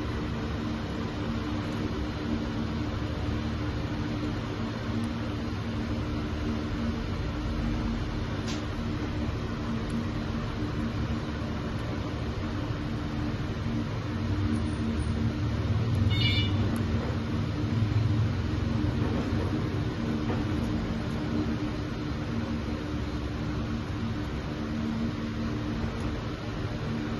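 A steady mechanical hum with a low drone and hiss, swelling slightly midway, with one brief high chirp about sixteen seconds in.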